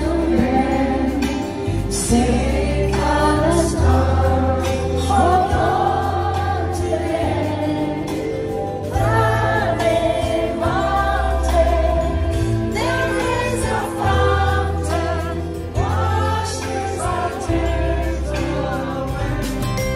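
A slow song with singing voices over held bass notes that change every second or two.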